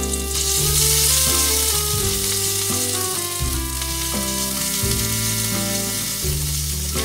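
Ground yellow spice paste sizzling in hot oil in a wok while a slotted spatula stirs and spreads it. The sizzle grows louder about half a second in, under background music with steady low notes.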